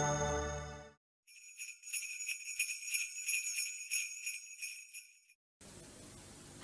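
Jingle bells shaken in a quick steady rhythm for about four seconds, after a piece of music fades out in the first second. A faint hiss follows near the end.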